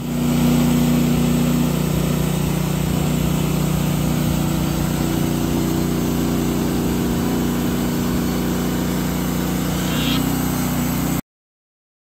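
Wood-Mizer LX55 portable band sawmill running steadily, its engine droning evenly as the band blade saws eastern red cedar. The sound stops abruptly about eleven seconds in.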